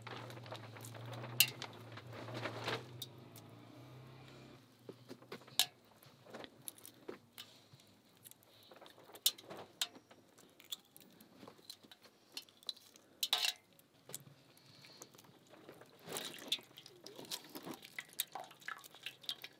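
Dishes and utensils clinking and knocking now and then, with a low steady hum for the first four seconds or so.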